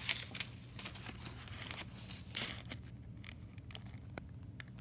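A folded paper instruction leaflet being unfolded and handled, crinkling and rustling. The rustling stops a little under three seconds in, leaving a few light paper ticks.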